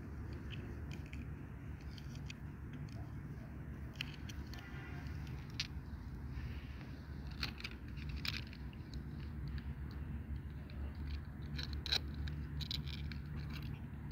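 Hands unboxing a toy doll set: scattered taps, clicks and scrapes of plastic and cardboard packaging, with a short rapid ratcheting run about five seconds in. A steady low hum runs underneath.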